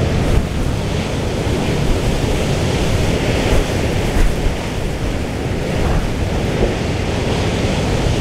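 Storm wind buffeting the microphone: a heavy, steady rumble that surges briefly in gusts, with the rush of rough sea mixed in.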